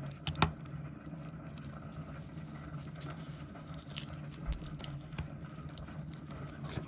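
Small scattered clicks and taps of a watch and metal tools being handled on a watchmaker's bench, the sharpest about half a second in, over a steady low hum.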